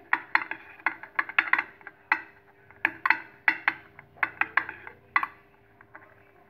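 A spoon clicking against a small ceramic bowl while stirring a thick sauce: about fifteen short, irregular taps that stop about five seconds in.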